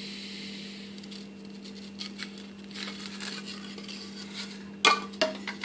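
Freshly hot-wire-cut sheets of blue polystyrene foam handled and pulled apart, rubbing and crackling, over a steady electrical hum. Two sharp knocks come near the end.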